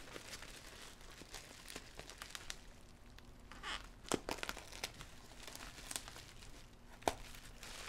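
Plastic bubble wrap crinkling and rustling as it is handled and cut open with an X-Acto knife, with scattered small clicks and a few sharper ones, about four seconds in and again near the end.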